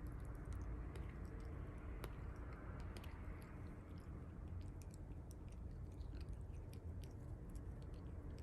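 Cat biting and chewing hard at its own claws: many small, irregular clicks over a steady low background hum.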